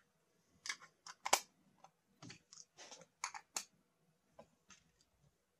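A scattered series of quiet clicks and knocks from a metal lens-and-clamp assembly being picked up and handled, the sharpest knock about a second and a half in.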